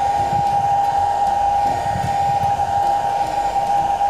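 Hand-held hot-air blower running steadily with a high whine over its rushing air, drying freshly applied leather filler.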